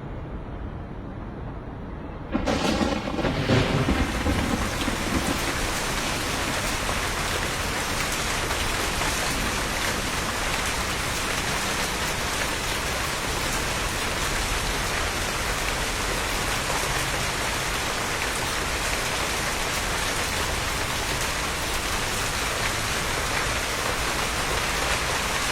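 Heavy rain pouring down, with a clap and rumble of thunder as the downpour starts suddenly about two seconds in, then a steady dense hiss of rain.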